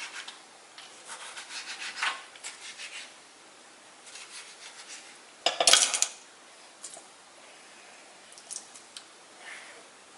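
Kitchen knife chopping a tomato on a plastic cutting board: a run of quick taps. About five and a half seconds in comes one louder clatter as the board is tipped over a stainless-steel bowl and the chopped tomato slides in. A few faint clicks follow as the mixture is handled.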